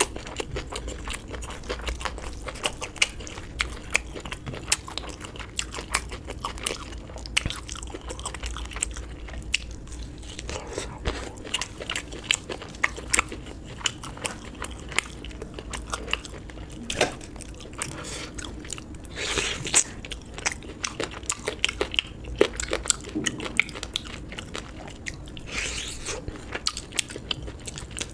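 A person eating close to the microphone: biting and chewing food, heard as a dense run of small, sharp clicks and crackles throughout, with a couple of louder, longer noisy moments in the second half.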